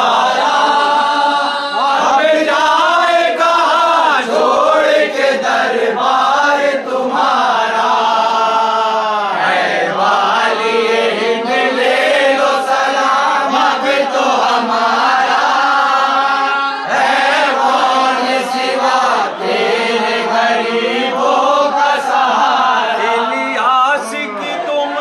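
A group of men singing a devotional qawwali-style manqabat together in chorus, loud and continuous, with hands clapping along.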